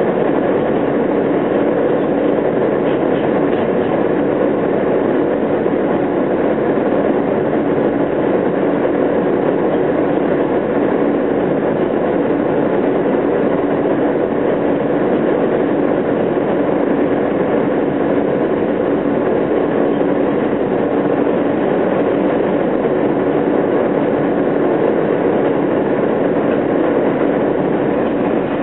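Running noise of an R160A-2 subway train heard from inside the car on an elevated line: a steady rumble of wheels on the rails with a faint hum.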